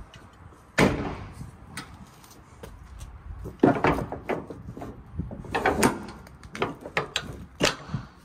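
A series of irregular knocks and clatters: one sharp knock about a second in, then a cluster of louder knocks from about three and a half seconds until near the end.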